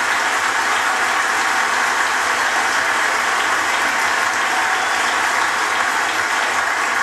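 Large congregation applauding: dense, steady clapping from a big crowd, with no break.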